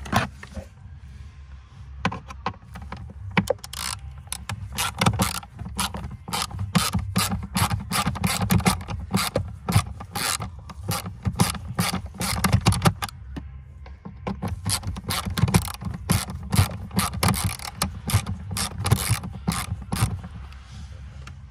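Hand ratchet with a socket extension clicking in rapid runs as it undoes the screws holding the under-dash trim. The clicking pauses briefly about two-thirds of the way through, then starts again.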